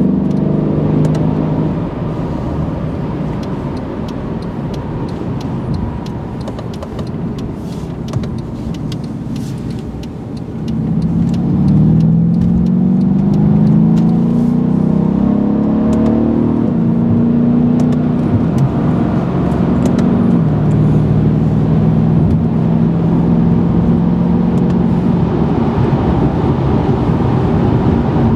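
Mercedes-Benz E63 AMG S's twin-turbo V8 heard from inside the cabin, over tyre and road noise. The car cruises quietly at first. About ten seconds in, the engine note gets louder and climbs in pitch in two rising steps as the car accelerates. Around twenty seconds in the pitch drops at an upshift, and the engine settles into a steady cruising drone.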